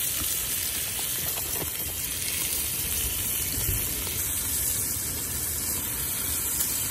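Bacon sizzling in a small cast-iron skillet over a propane camp stove: a steady frying hiss with a low rumble underneath.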